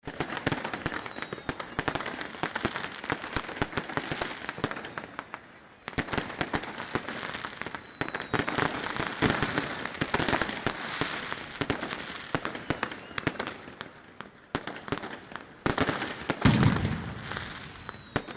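Fireworks and firecrackers going off close by in a rapid, dense barrage of cracks and bangs, with a few falling whistles. The heaviest, deepest bang comes near the end.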